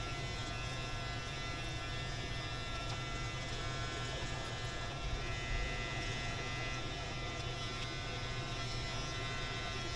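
Electric hair clippers buzzing steadily as they cut hair on the side and back of the head.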